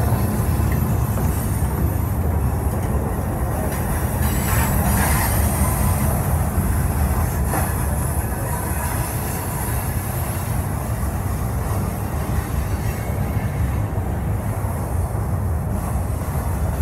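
Freight train cars, centerbeam flatcars loaded with lumber, rolling past: a steady low rumble of steel wheels on the rails.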